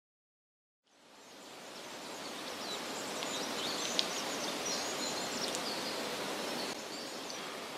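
Outdoor woodland ambience fading in: a steady background hiss with scattered high bird chirps, and one short sharp click about four seconds in.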